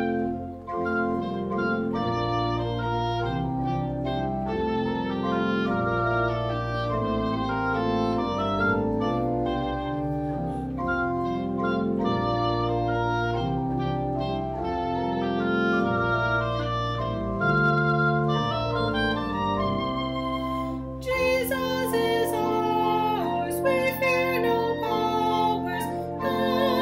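Pipe organ and a woodwind playing a hymn interlude in sustained chords; about two-thirds of the way through, a solo female voice comes in with vibrato, singing over them.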